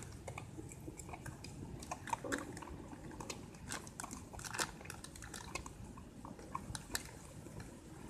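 Slime mixture of clear glue, foaming face wash and body scrub being stirred in a container: faint, irregular sticky squelches and small clicks.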